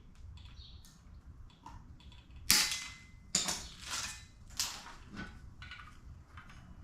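A band on a strut assembly being cut: a sharp snap about two and a half seconds in, then several short rasping handling noises about half a second apart as it is worked loose.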